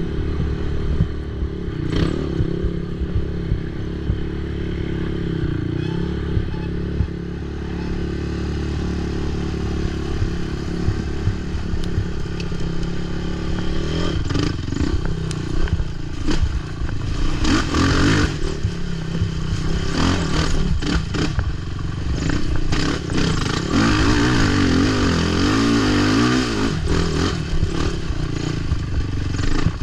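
Race ATV engine running under load over rough terrain, revs rising and falling with the throttle, with frequent clattering knocks from the machine bouncing over bumps and roots.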